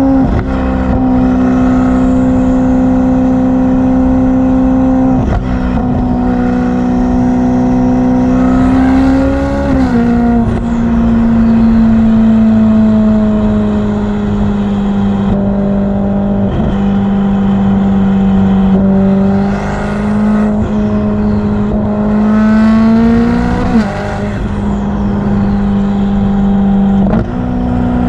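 Ferrari F8's twin-turbo V8 running loud at steady revs, its engine note holding a constant pitch. It climbs in pitch and then drops back twice, about a third of the way in and again near the end, with a faint high whistle rising alongside, which the uploader calls turbo spin sound.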